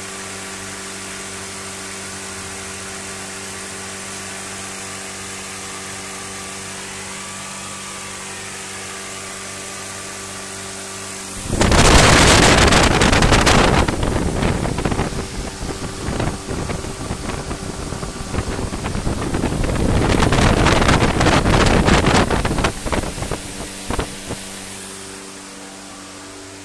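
A steady machine hum with several even low tones. About eleven seconds in, a sudden loud rushing, crackling noise breaks in, dips, surges a second time, then falls back near the end.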